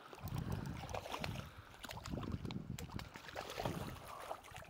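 River water sloshing and splashing in irregular surges, with a few small clicks, while a hooked rainbow trout is being played.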